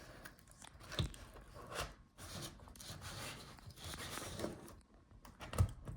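Faint rubbing and a few light clicks of the HP Envy x360 laptop's display hinges and chassis being handled as the hinges are unfolded to free the screen from the palmrest.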